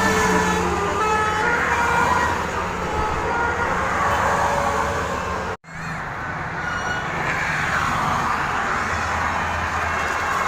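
Tour bus's telolet horn playing a melody of short tones that step up and down in pitch, over the bus's engine running. The sound breaks off for an instant about halfway through.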